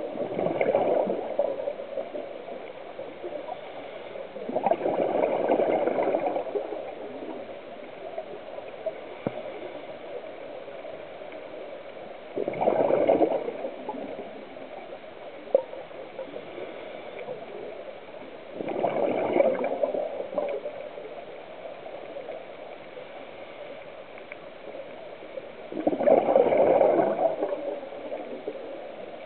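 Scuba diver's exhaled breath through the regulator heard underwater: five bursts of bubbles, one every six or seven seconds, each lasting a second or two, with a faint steady hiss between them.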